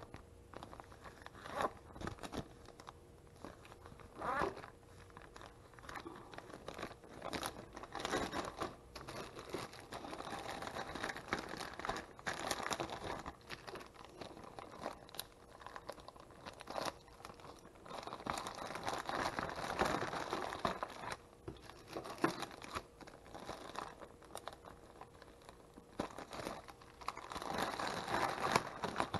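Clear plastic sheeting and a plastic freezer bag crinkling and rustling as they are handled, irregular throughout, with small sharp clicks and louder stretches of crinkling.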